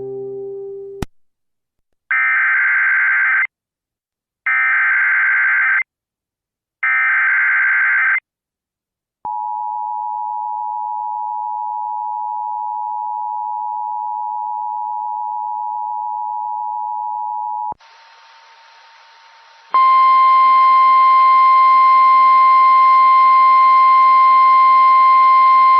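Emergency Alert System activation tones. There are three short bursts of warbling SAME header data, then the two-tone EAS attention signal held for about eight seconds. After a brief hiss, a loud, steady single-tone weather-radio warning alarm with some static begins about 20 seconds in.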